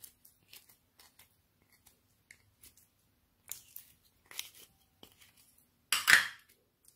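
Glossy slime being scooped out of a tub by hand, with scattered sticky clicks and small pops. About six seconds in there is a louder wet squelch as the lump is pressed onto the slime in the tray.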